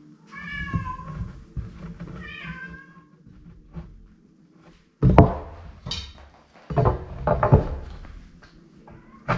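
A cat meows twice, two short wavering calls in the first three seconds. From about five seconds in come several loud, heavy knocks and thumps, the loudest sounds here.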